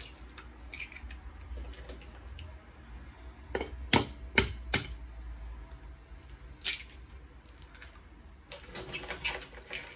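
Eggs tapped and cracked against the rim of a glass mixing bowl. There is a quick run of four sharp taps a little over three seconds in, another tap near seven seconds, and a cluster of clicks near the end.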